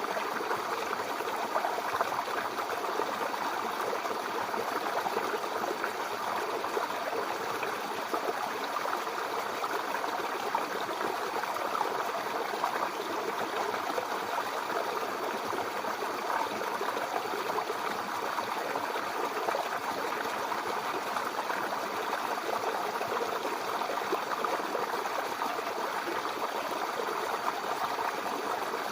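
Mountain river flowing over rocks: a steady, even rush of water with no change.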